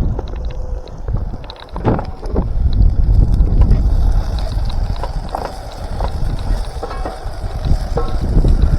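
Wind buffeting the microphone as a low, uneven rumble, with a few knocks and clatters scattered through it.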